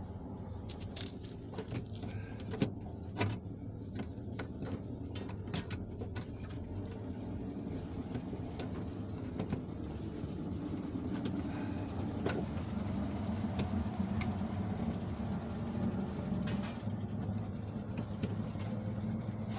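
Scattered sharp clicks and knocks of a car door's loosened latch assembly and tools being worked inside the door, thickest in the first half, over a steady low vehicle rumble.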